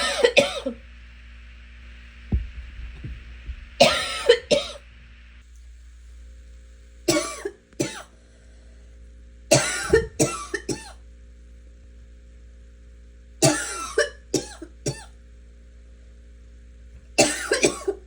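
A person coughing in six fits of two to four coughs each, a few seconds apart, over a steady low hum: a cough that came with a sinus illness.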